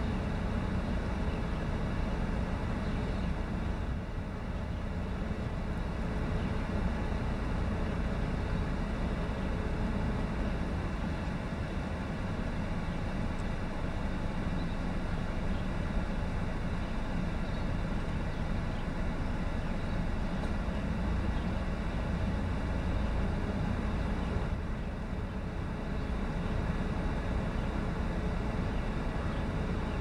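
Steady low rumble of urban road traffic.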